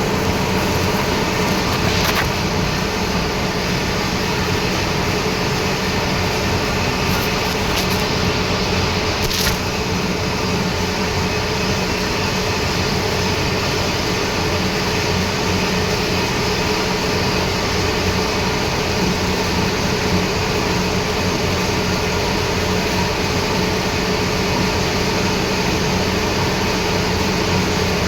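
Metalworking lathe running steadily with a constant mechanical hum, and a few faint ticks in the first ten seconds.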